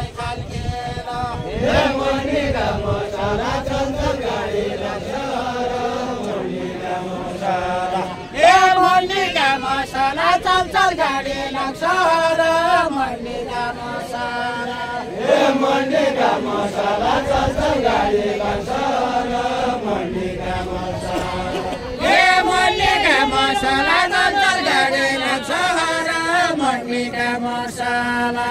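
Group of voices singing a Deuda, the far-western Nepali folk song, in long, drawn-out chanted lines with no instruments. Each new line comes in louder, about 8, 15 and 22 seconds in.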